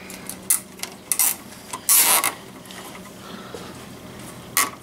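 Zip ties being pulled tight through their catches: four short rasping zips, the longest and loudest about two seconds in.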